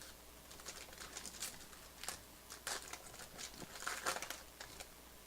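Baseball trading cards being handled: a quiet, irregular run of short scrapes and crinkles as cards slide against each other and are sorted, a little louder about four seconds in.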